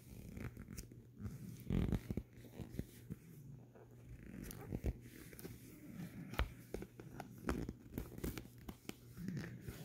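Irregular crinkling, rustling and small clicks of the covering material being folded and creased by hand around a wall plate.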